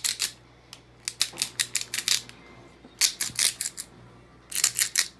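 Hand salt grinder twisted over the jars, grinding coarse pink Himalayan salt in four short bursts of rapid crunching clicks.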